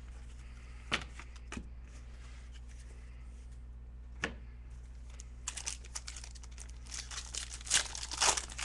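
Foil trading-card pack wrapper being torn open and crinkled by hand. A few separate sharp clicks come first, then denser crinkling and tearing that is loudest near the end.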